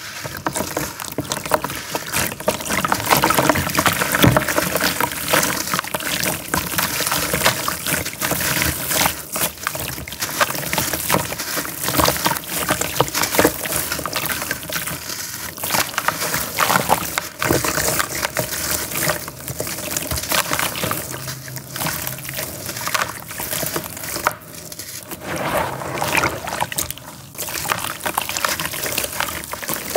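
A grainy charcoal cake crumbled by hand over a bucket of water: continuous gritty crunching and crackling as it breaks apart, with clumps and powder splashing and trickling into the water.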